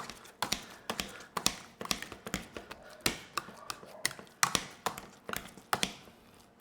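Kitchen utensil tapping and scraping against a pot or pan in a run of irregular sharp clicks, a few a second, some with a short metallic ring.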